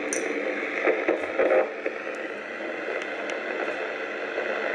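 Open FM radio hiss and static from a Yaesu FT-857 transceiver tuned to the ISS channel, heard between voice transmissions, with a short louder patch of noise about a second in.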